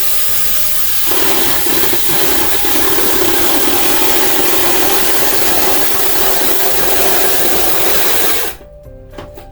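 Small handheld electric saw starting up, then cutting steadily into a thick wooden tabletop from about a second in, and stopping suddenly near the end.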